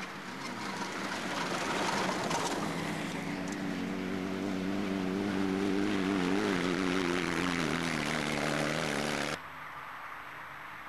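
Off-road competition vehicle's engine revving hard, growing louder over a few seconds, its pitch wavering up and down. The sound cuts off abruptly near the end, leaving a low hiss.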